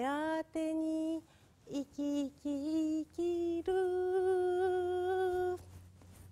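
A woman singing a Japanese song unaccompanied, a phrase of short and held notes that ends on a long held note, which stops about five and a half seconds in.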